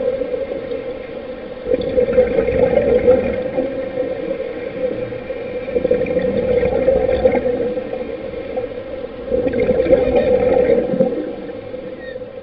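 Scuba diving recorded underwater: regulator breathing, with bubbling exhalations swelling every three to four seconds over a steady drone.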